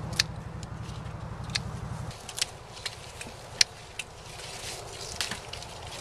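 Felco pruning shears snipping grape clusters from the vine: a series of sharp, irregularly spaced snips over leaf rustling. A low, evenly pulsing rumble underneath stops about two seconds in.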